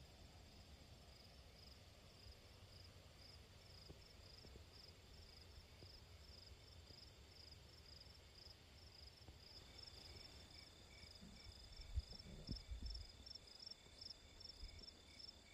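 Faint insects chirping in a steady, regular pulse of high chirps, several a second, with a second insect joining in with a steady high trill about two-thirds of the way through. A brief low thump about twelve seconds in is the loudest moment.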